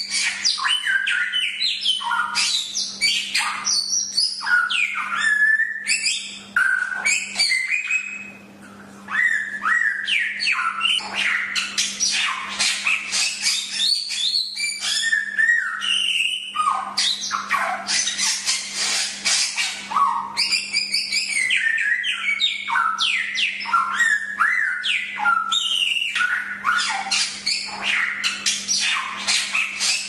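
Samyong (golden whistler) singing a continuous, fast stream of varied chattering and whistled notes, many of them sweeping down in pitch, with a brief pause about eight seconds in.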